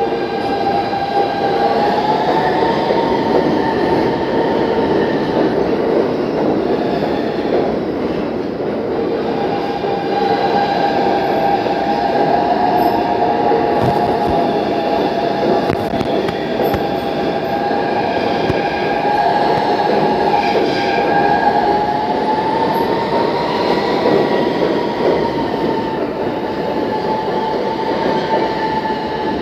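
New York City subway train running along the platform: a steady rumble of steel wheels on rail with a wavering high wheel squeal over it. The squeal fades for a few seconds and then returns.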